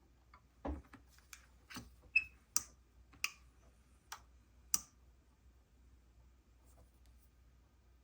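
A string of about nine small, sharp clicks and taps over a few seconds, one with a brief ringing tone: small tools or parts being handled on the workbench during an electronics repair.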